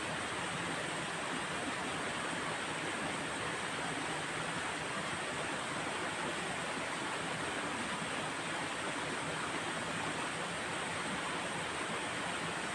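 Steady rushing of flowing water, even throughout with no distinct events.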